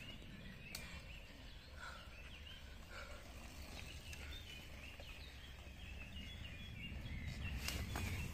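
Small birds chirping in woodland over a low, steady rumble. Near the end a mountain bike rolls past close by, the sound of its tyres on the dirt trail growing louder, with a few sharp clicks.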